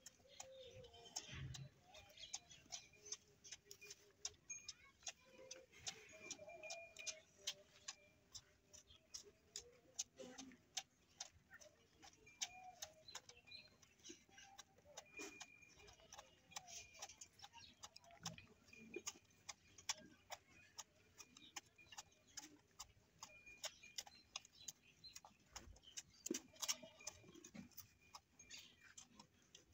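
A calf suckling at a goat's udder: a quiet, irregular run of quick wet sucking clicks and smacks, several a second.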